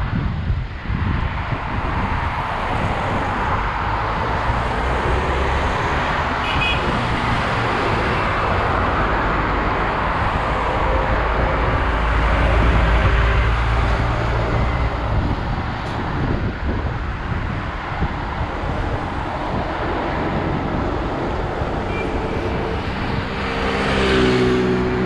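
Street traffic heard while cycling: cars passing over a steady rush of noise, with a low rumble swelling around the middle. Near the end a vehicle with a pitched engine note passes close and grows louder.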